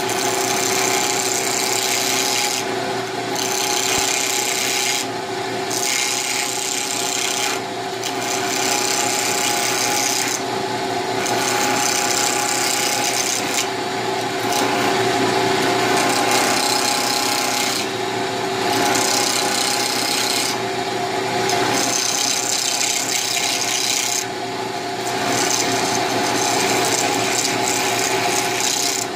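Wood lathe running steadily while a hand-held turning tool scrapes a spinning pen blank of burgundy acrylic and maple burl in small cuts. The scraping comes in passes, breaking off briefly every two to four seconds as the tool lifts, over the lathe's steady hum.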